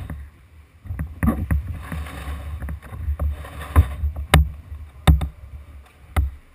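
Paddle knocking and clicking against the plastic hull of a Jackson Dynamic Duo tandem whitewater kayak, heard close up from the bow: about ten sharp knocks at irregular spacing, each with a low thud.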